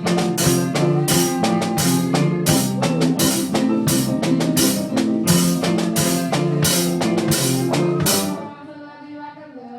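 A live band plays with a drum kit, bass and guitar: a steady drum beat over a stepping bass line. About eight seconds in the playing breaks off, leaving held notes ringing.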